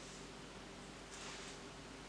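Quiet room tone: faint hiss with a low steady hum, and a soft rustle about a second in.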